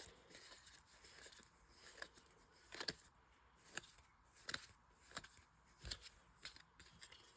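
Faint handling of trading cards, a soft click or snap every second or so as cards are slid one by one off a pack.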